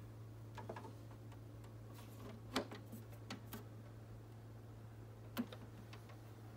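Plastic scanner lid of an HP multifunction printer being lowered and shut over the glass: a few light clicks, then the loudest click about two and a half seconds in, a couple of smaller ones, and another sharp click about five seconds in, over a steady low hum.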